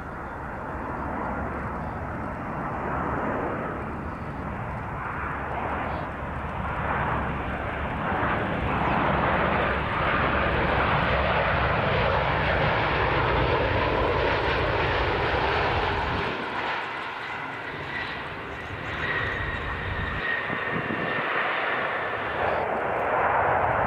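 Boeing 737 airliner's jet engines on final approach, the roar building as the jet comes closer and then holding loud, with a thin steady whine showing in the later part.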